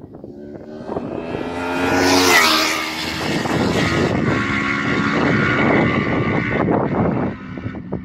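Honda VFR 800 F's V4 engine through an SC Project Conico silencer with the dB killer fitted, passing at speed. The exhaust note builds to its loudest about two seconds in, its pitch dropping as it goes by, then holds a steady note until it falls away near the end.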